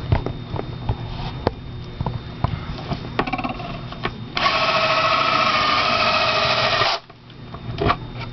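Cordless drill running steadily for about two and a half seconds, starting and stopping abruptly, its quick-change bit chucked backwards to work the rubber gasket lip out over the edge of the dryer door glass. Before it come scattered light clicks and knocks of the work on the glass and gasket.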